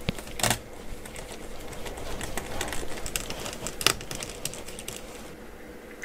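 Light clicks and taps of a screwdriver and gloved fingers on the open laptop's internals as the battery's three retaining screws are taken out, with two sharper clicks about half a second in and near four seconds.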